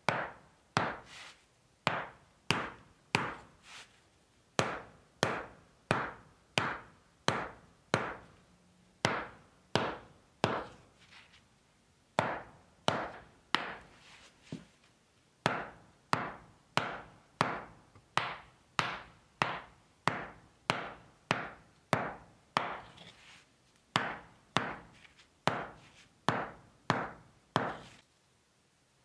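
Steel-headed hammer striking end-grain blocks of hand-split shortleaf pine in a wooden brick floor: a steady run of sharp knocks about one and a half a second, each with a short ring, broken by a few brief pauses and stopping shortly before the end.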